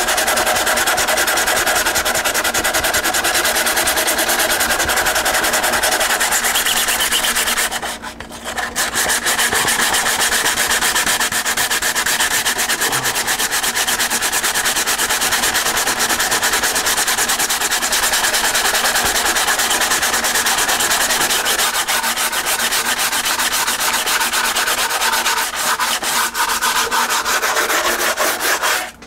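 Sandpaper on a hand sanding pad rubbed rapidly back and forth over fiberglass cloth and cured resin on a balsa model-airplane fuselage: a steady scratchy rasp, sanding out the final coat of resin. It pauses briefly about eight seconds in.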